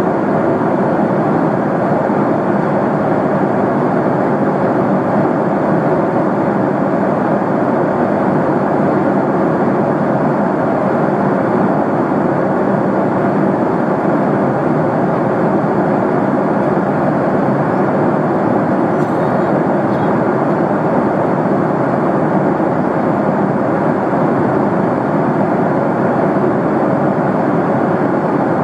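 Steady cabin noise of a JAL jet airliner at cruising altitude, about 12,000 m: an even, unbroken rush of airflow and engine noise heard from inside the passenger cabin.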